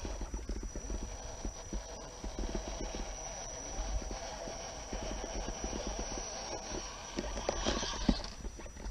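Radio-controlled rock crawler climbing a rock face: irregular clicks and knocks of its tyres and chassis against the stone, with a louder scrabbling stretch about eight seconds in that holds the sharpest knock.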